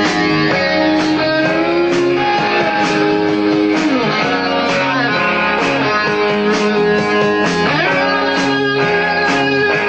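Rock band playing live on electric guitars, bass and drums. A lead guitar line holds notes and bends and slides between them, over a steady drum beat.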